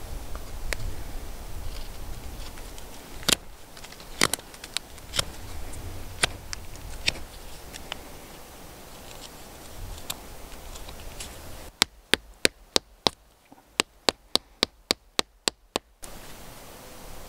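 Sharp clicks and taps from a knife being worked in the hands, scattered at first, then a quick regular run of about four to five clicks a second near the end.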